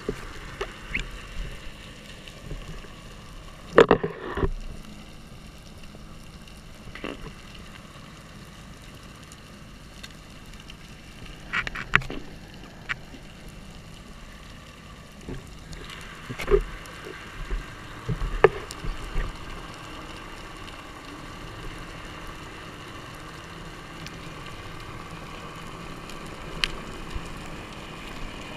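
Muffled underwater ambience heard through a camera's waterproof housing: a steady hiss with a faint hum, broken by a few short knocks and squeaks, about four seconds, twelve seconds and sixteen to nineteen seconds in.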